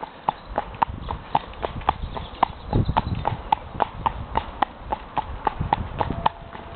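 Horse's hoofbeats clip-clopping in a steady, even rhythm of about four strikes a second, with a brief low rumble about three seconds in.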